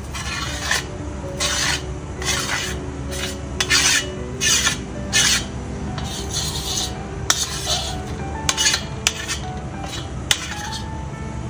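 A steel spoon scrapes lampblack soot off a steel plate to gather kajal: repeated rasping strokes about once a second, with a few sharp clicks of metal on metal in the second half. Background music plays underneath.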